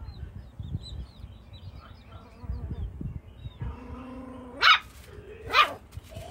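Jack Russell–Chihuahua puppy whining, the whine sweeping sharply up into a loud high yelp, twice, a second apart, a little past the middle.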